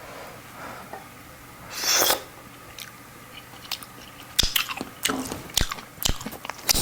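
A person eating close to the microphone, with biting and chewing sounds: a short noisy burst about two seconds in, then a run of sharp clicks and smacks from about four and a half seconds on.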